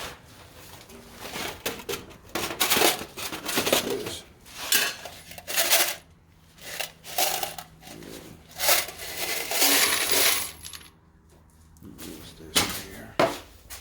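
Rummaging among hard objects: a run of irregular clinks, clatters and knocks as items are moved and handled.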